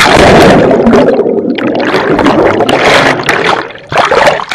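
Sudden splash as a camera in a waterproof case plunges into a swimming pool, followed by loud underwater churning and bubbling heard through the case.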